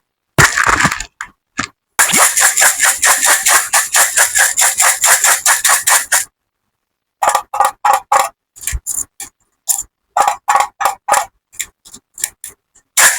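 Small hard candies such as M&M's rattling and clattering in crisp strokes. About two seconds in comes a quick, even run of about six a second, lasting some four seconds. After a short gap, slower single clatters follow.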